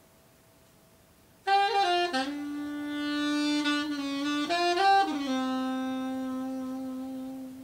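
Unaccompanied saxophone solo: after a short pause, a few quick notes lead into a long held low note, then a quick run up and a second long held note that fades near the end.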